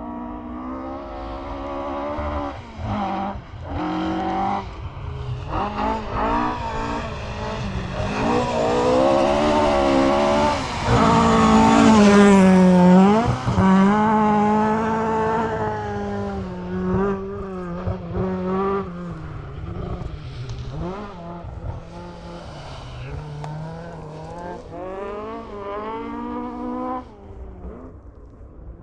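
Rally car on a forest stage, engine revving hard through several gear changes as it approaches, passing loudest about twelve seconds in with a sudden drop in pitch, then fading as it pulls away up the stage, dropping off sharply near the end.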